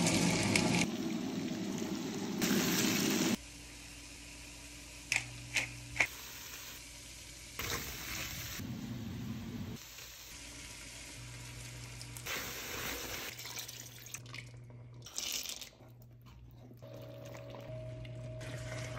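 Chopped onion tipped into a hot pot, sizzling loudly for about three seconds, then quieter cooking sounds from the pot with a few sharp clicks, broken by abrupt cuts.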